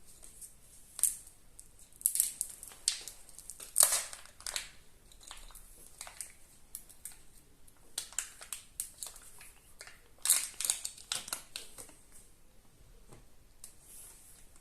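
Crinkling and crackling of a Kinder Surprise egg's thin foil wrapper and plastic packaging being handled and torn open, in irregular bursts with short pauses between.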